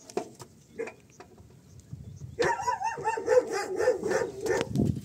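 Dog whining and yelping in a high, wavering voice, starting about halfway through; before it only a few faint clicks.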